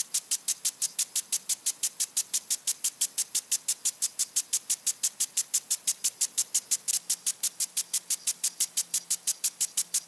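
Water sprinkler spraying in quick, evenly spaced hissing bursts, about five or six a second, in a steady rhythm.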